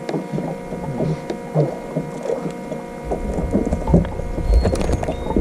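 Steady hum from the fishing boat's motor, with a low rumble of wind on the microphone coming in about three seconds in.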